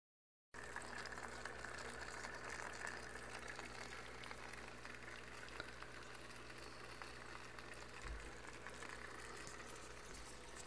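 Faint, steady bubbling and trickling of water from a small aquarium's filter, with a few faint clicks.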